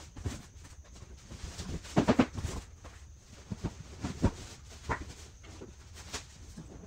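Plastic wrapping crinkling and rustling in irregular crackles, with a louder cluster about two seconds in, as a plastic-wrapped chair part is pulled out of a cardboard box and unwrapped.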